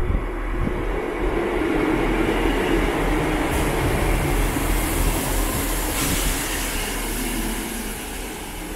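ScotRail Class 170 Turbostar diesel multiple unit departing: steady engine and wheel-on-rail noise with a low hum, and a hiss joining a few seconds in. The noise eases slightly near the end.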